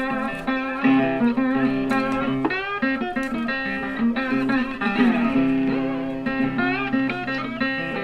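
Background blues guitar music: plucked guitar notes with sliding bends over sustained chords.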